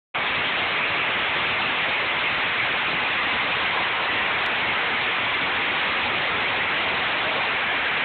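Hailstorm with heavy rain, falling steadily as a dense, even hiss.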